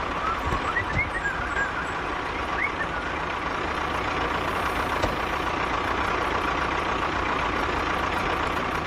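Mini truck running steadily, a constant drone with a thin high whine held over it. A few short chirps sound in the first few seconds.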